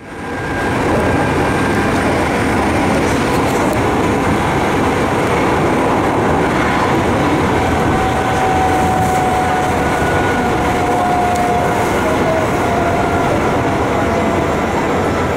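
Kintetsu commuter train running on the rails, heard from inside the front car: a steady running noise that fades in at the start, with a faint high whine coming and going.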